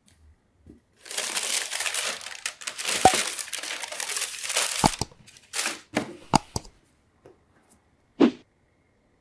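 Thin shoebox tissue paper crinkling and rustling as it is handled, for about four seconds. Then comes a handful of sharp knocks and one more near the end.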